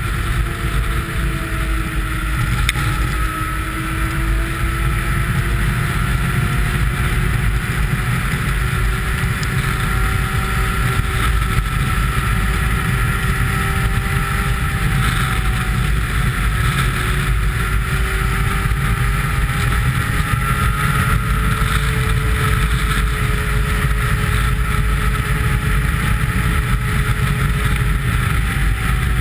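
Snowmobile engine running at speed, its pitch drifting slowly up and down as the throttle and speed change, with wind rushing over the microphone.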